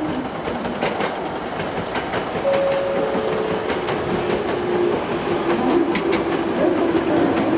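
Electric train running on jointed track, its wheels clacking irregularly over the rail joints, with a steady whine coming in about halfway through.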